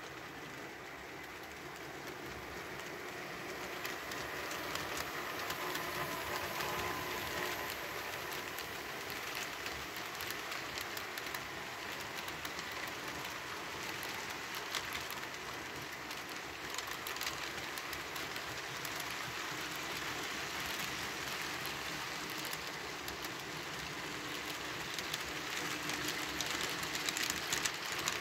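HO scale model coal train of plastic hopper cars rolling past on the track: a steady, fast rattle of small wheels clicking over the rail joints, growing louder over the first few seconds.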